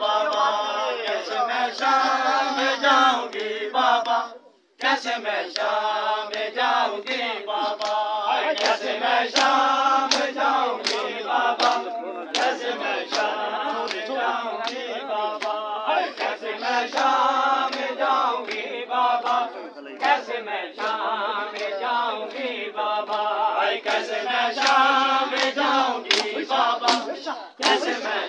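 Crowd of men chanting a Muharram lament together, with sharp slaps from hands beating on chests in matam keeping the beat. The sound cuts out briefly about four and a half seconds in.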